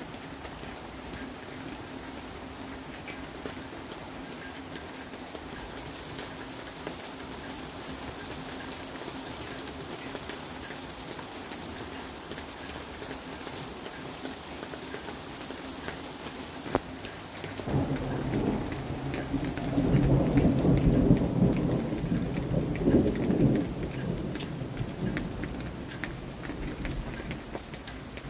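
Steady rain falling throughout; about two-thirds of the way in, a long roll of thunder builds, peaks and rumbles away over roughly ten seconds.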